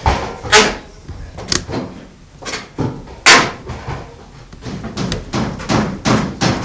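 Irregular knocks and bangs from carpentry work on a wooden shack, about a dozen of them, the loudest about three seconds in.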